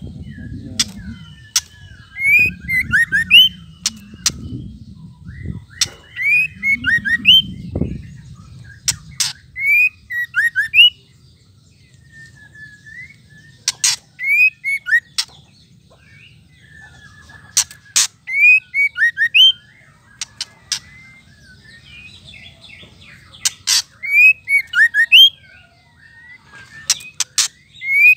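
White-rumped shama calling in short repeated phrases of rising and falling whistled notes, broken by sharp clicking chatter (the 'ketrekan' call).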